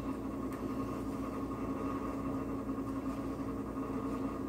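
A steady low hum from an unseen kitchen appliance or motor, with a few faint light clicks of a whisk against a cast-iron skillet of melting butter and stock.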